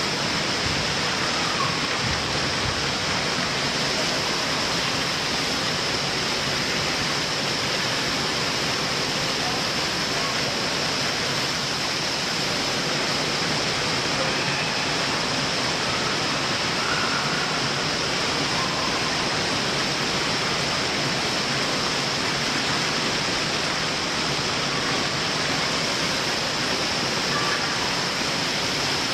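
Steady rush of running water in an indoor water park, from water pouring down the slides and churning in the splash-down runouts, with faint voices in the background.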